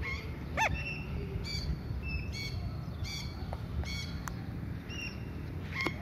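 Alexandrine parakeets calling in flight: a string of short, high calls repeated every half second or so, the loudest about half a second in and another strong one near the end.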